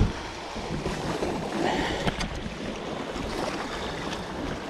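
Sea water washing and breaking over shoreline rocks, with wind on the microphone.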